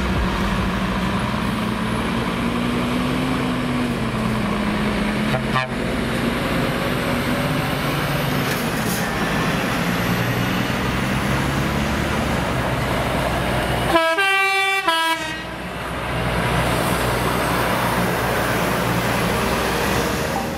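Heavy trucks' diesel engines running steadily as the trucks pull out, with a truck horn sounding one blast of about a second some fourteen seconds in.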